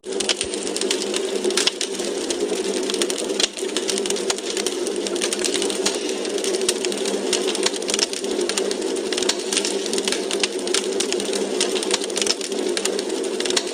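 Logs burning in a fireplace, crackling: a dense, irregular run of small pops and snaps over a steady low rush of flame.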